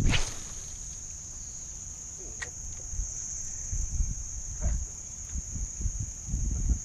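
A steady, high-pitched chorus of insects trilling without a break. Low thumps and rumbles at the microphone come and go, with a louder one right at the start.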